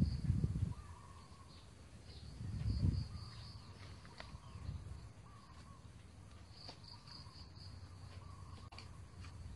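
Outdoor ambience of birds and insects: repeated high chirping trills and recurring short gliding calls. Two brief low rumbles come near the start and again about two and a half seconds in.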